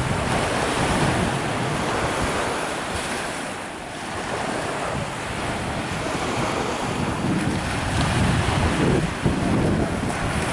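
Ocean surf washing and breaking, a steady rushing that swells and ebbs, dipping briefly about four seconds in, with wind buffeting the microphone.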